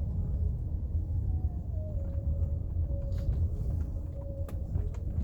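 Wind buffeting the microphone: a continuous low, fluttering rumble, with a few faint clicks in the second half.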